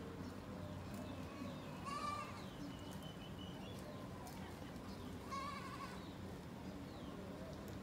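Goat bleating: two short calls, about two seconds and five and a half seconds in.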